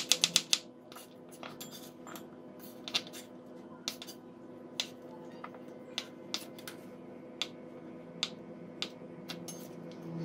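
Chef's knife striking a wooden cutting board: a quick run of chops slicing shallots at the start, then single, spaced-out taps as fishballs are cut in half. A faint steady hum runs underneath.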